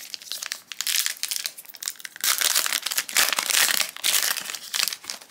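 Foil trading-card booster pack wrapper crinkling as it is pulled open by hand. The crackle comes in two stretches, a shorter one about a second in and a louder, longer one from just past two seconds until near the end.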